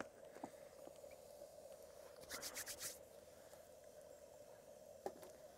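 Near silence with a faint steady hum, broken by a short rattle of quick small clicks about two and a half seconds in and a single tick near the end.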